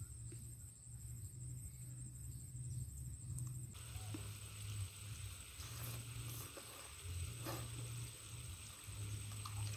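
Outdoor ambience with a steady high-pitched insect whine and evenly pulsed chirps over a low rumble. About four seconds in the background changes to a fuller hiss with a few short clicks.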